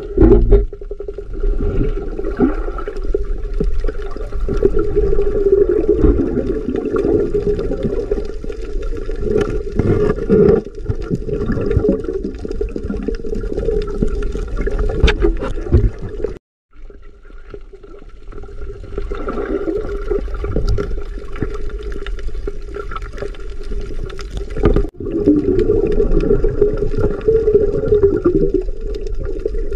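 Underwater sound picked up through an action camera's waterproof housing: a muffled, steady rush of water with a low drone and scattered crackles and clicks. It cuts out briefly about sixteen seconds in.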